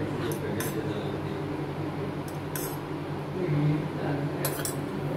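A metal spoon clinking against a stainless steel cup and bowl a few times as spoonfuls of heated oil are added to a flour mix, over a low steady hum.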